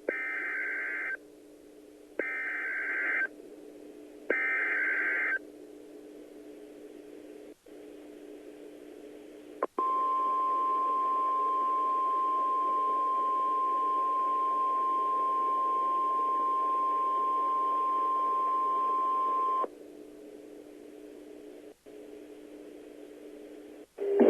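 NOAA Weather Radio alert: three one-second bursts of SAME digital header data, a pause, then the 1050 Hz warning alarm tone held steady for about ten seconds, over a low radio hum. The sequence heralds a warning broadcast, here a tornado warning.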